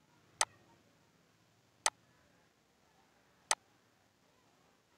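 Three single computer mouse clicks, about a second and a half apart, over faint room hiss.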